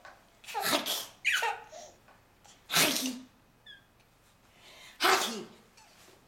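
A series of loud sneezes, four in a row about a second or two apart, with a baby laughing in between.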